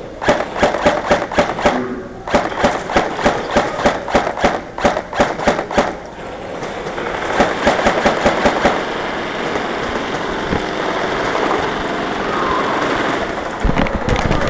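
Airsoft gun firing strings of rapid shots, about five a second, in three bursts over the first nine seconds. A steadier background din and a couple of low thumps follow near the end.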